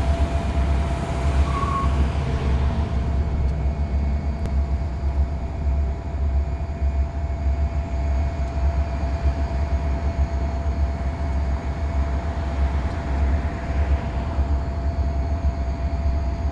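Diesel-electric freight locomotives running at a standstill: a steady low rumble with a constant high whine over it.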